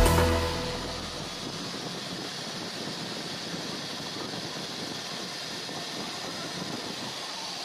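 Milling machine running steadily, its spiral end mill cutting along the edge of a metal casting under flowing coolant, an even noise without clear tones or knocks. Background music fades out about a second in.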